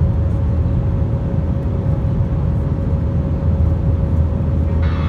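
Airliner cabin noise during the climb after takeoff: a steady, loud jet-engine and airflow rumble with a faint steady hum running through it. A brighter sound joins just before the end.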